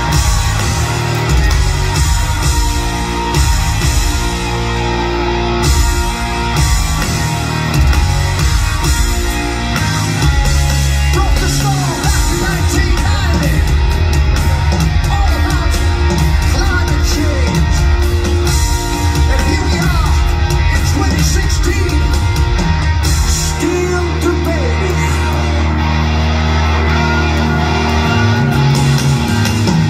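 Live rock band playing loudly through a club PA: electric guitars, bass and drums, with a male lead vocal.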